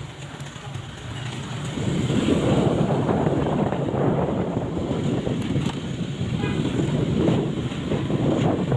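A vehicle engine running steadily. About two seconds in, loud wind noise buffets the microphone as the vehicle gets moving, and it stays up from then on.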